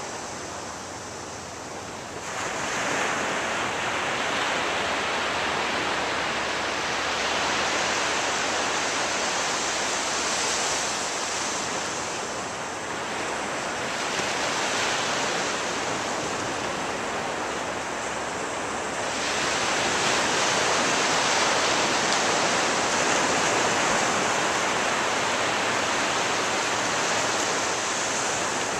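Ocean surf breaking and washing up a beach, a continuous rush that swells as waves come in, about two seconds in and again about two-thirds of the way through.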